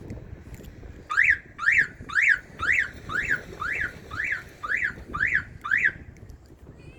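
A person whistling a call to a cat: about ten rising-and-falling whistles, roughly two a second, starting about a second in and stopping about a second before the end.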